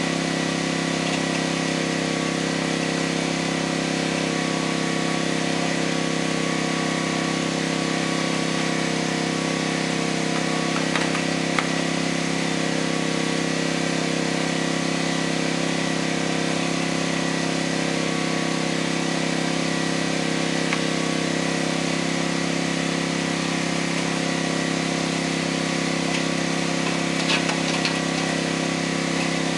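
An engine running steadily at one constant speed, with a few faint knocks about eleven seconds in and again near the end.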